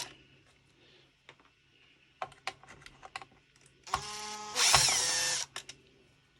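Cordless drill used as a screwdriver, backing a screw out of a Tamiya Lunchbox RC truck's plastic chassis. A few light clicks come first, then one drill run of about a second and a half, about four seconds in; it grows louder partway through and its pitch falls as it stops.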